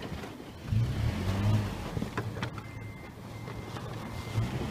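A 4x4's engine revving under load about a second in, then running steadily, while towing a stuck SUV out of deep snow on a strap.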